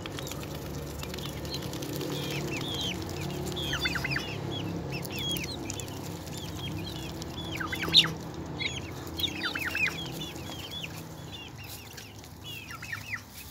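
Farmyard poultry calling: many short, high peeps and clucks come in quick runs, the sharpest about eight seconds in, over a low steady drone.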